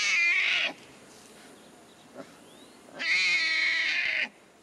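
A newborn Siberian tiger cub crying twice in high-pitched cries: a short one at the start and a longer one about three seconds in. It is one of a litter whose mother is not taking care of them.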